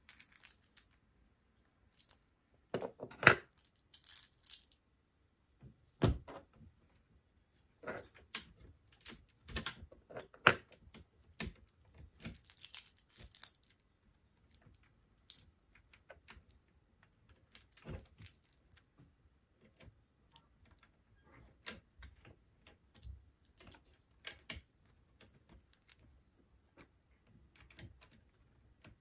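Plastic LEGO bricks being handled and pressed together: scattered sharp clicks and small knocks, with two short spells of loose pieces rattling, about four seconds in and again around twelve to thirteen seconds in.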